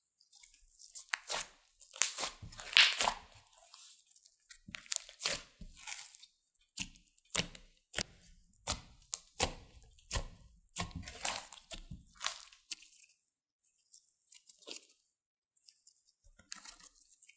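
Glossy slime being squished and stretched by hand, with irregular crackling, popping clicks, busiest over the first dozen seconds and thinning out near the end.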